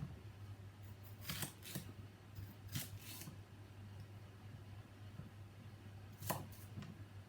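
Kitchen knife slicing courgette on a chopping board: several separate cuts at an uneven pace, a pair of quick ones, then another pair, and a lone sharper cut near the end, over a steady low hum.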